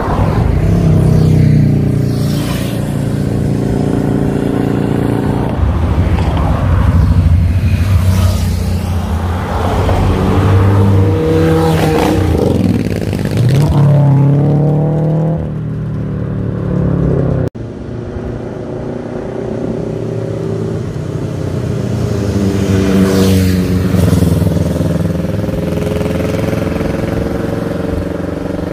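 Cars and motorcycles passing close by one after another on a winding road, engines running loud and revving up as they accelerate past, the pitch climbing about halfway through and again near the end. The sound breaks off abruptly once, just past the middle.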